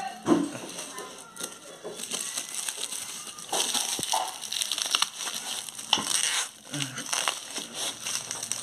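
Plastic courier bag crinkling and rustling as hands pull a cardboard box free of it, in uneven surges with scattered clicks and scrapes of the box.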